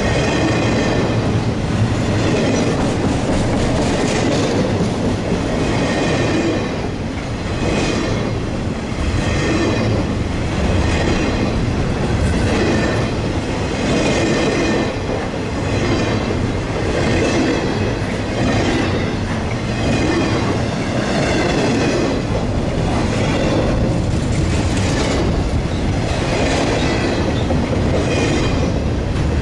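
Double-stack container train's well cars rolling past close by: a loud steady rumble of steel wheels on rail with repeated clacks as the wheelsets pass, and a high-pitched wheel squeal that comes and goes.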